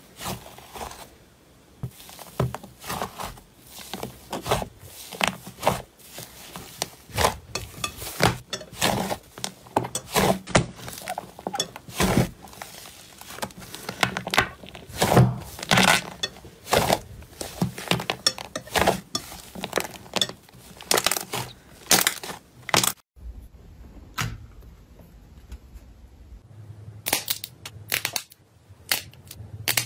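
Crunchy material being squeezed and crushed by hand for ASMR: a dense, uneven run of sharp crackles and crunches. It breaks off about 23 seconds in, and sparser crackling follows.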